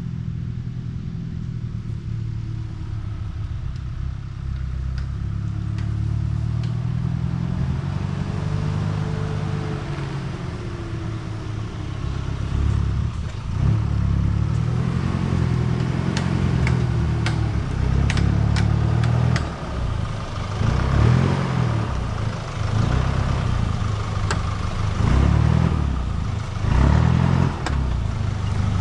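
Troller 4x4's diesel engine running at low revs, its pitch rising and falling with the throttle. Scattered knocks and rattles join in during the second half.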